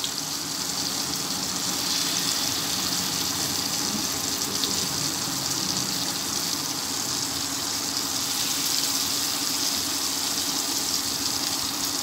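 Masala-coated fish pieces shallow-frying in sesame oil on a heavy black tawa, a steady sizzling hiss of hot oil bubbling around them.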